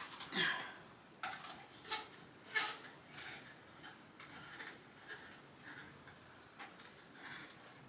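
Small metal hardware and tools clinking and clicking irregularly as they are handled, a few light taps a second, some sharper than others.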